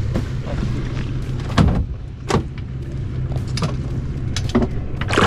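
Boat's outboard engines idling with a steady low hum. A few sudden knocks and thuds cut in, the loudest about a second and a half in and again just after two seconds.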